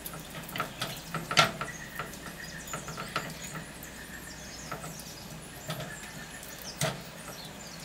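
Hands rubbing a thick, wet spice paste into a scored whole pomfret on a plate: small irregular squishing clicks and smacks of fingers on fish and plate, the sharpest about one and a half seconds in and again near seven seconds.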